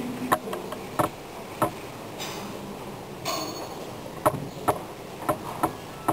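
Sharp clicks, about nine of them at uneven spacing: three evenly spaced in the first two seconds, then a quicker, irregular run after a pause, over a faint room hiss.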